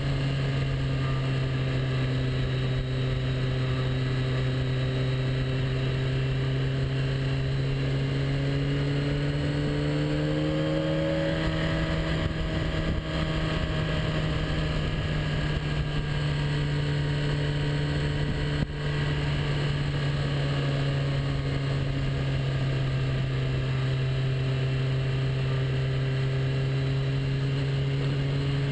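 Motorcycle engine running at a steady cruise over a constant rush of wind and road noise. Its pitch rises gradually about eight to eleven seconds in, then settles back, and there is a single short click about two-thirds of the way through.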